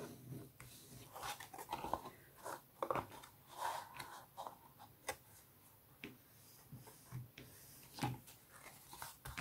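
Bone folder rubbed and pressed along the folds of a cardstock card, with paper handling: a string of short, irregular, faint scrapes and taps.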